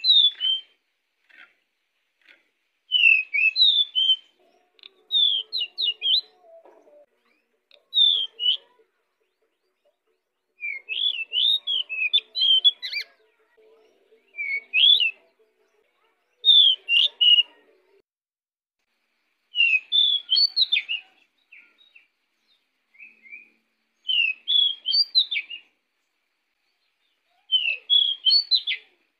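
A pied bushchat (decu) in full song: bursts of quick, sliding whistled notes, each phrase a second or two long, repeated after short pauses.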